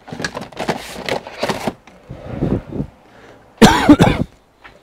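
Objects being handled and rummaged through: clattering and rustling, then a loud, squeaky scrape lasting about half a second near the end.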